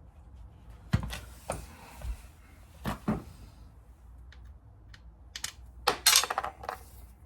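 Metal tools and motorcycle engine parts knocking and clattering during a teardown: a few separate knocks, then a louder rattling clatter about six seconds in.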